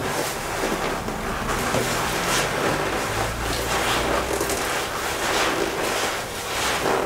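Rustling and swishing of a leather jacket and a satin dress rubbed together, in repeated swishes over a steady hiss.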